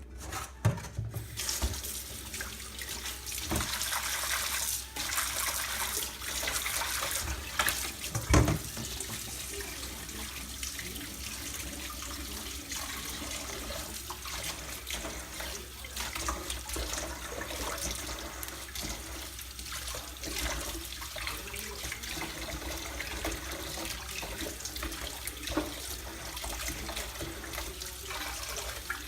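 Kitchen tap running water into a sink in a steady stream, with a sharp knock about eight seconds in.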